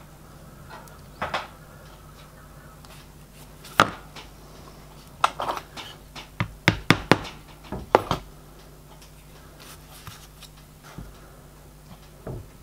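Small hand tools, pliers and side cutters, clicking and tapping on a workbench while tiny rivets are handled and trimmed. The sharp clicks come scattered, with a quick run of them between about five and eight seconds in.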